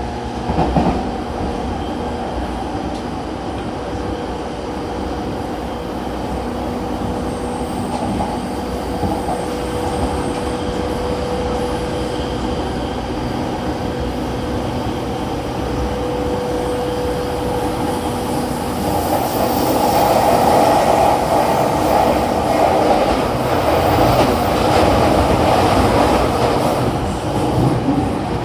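Running noise inside a JR East E231-1000 series electric commuter car at speed: steady wheel and rail noise with a thin, even motor whine. About two-thirds through, the running noise grows louder.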